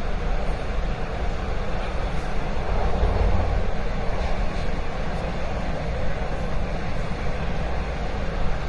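Subway train running, heard from inside the car: a steady low rumble with rolling wheel and track noise.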